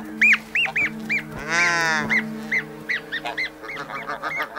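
Snow geese honking in a quick run of short calls, about two or three a second, with one longer, harsher call about one and a half seconds in. They are calling in alarm at an Arctic fox taking their goslings.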